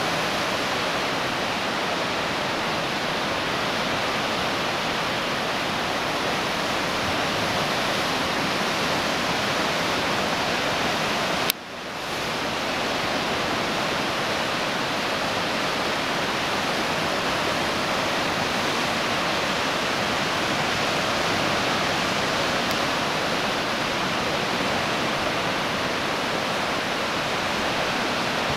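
Whitewater rapids of the Potomac River rushing steadily, a dense, even wash of water noise. About eleven seconds in, a sharp click and a short dropout briefly interrupt it.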